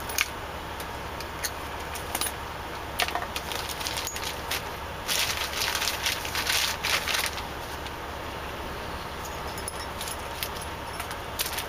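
Cables and small hardware being handled: scattered clicks and light rattles, with a stretch of rustling and rattling about five seconds in, over a steady low hum.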